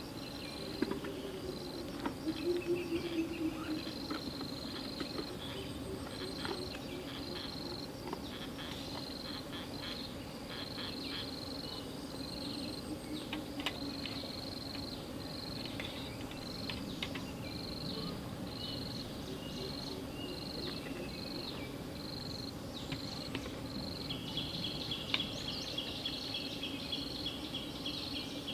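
Insect chirping in a steady high pulse about once a second, with scattered faint clicks; a second, faster trill joins near the end.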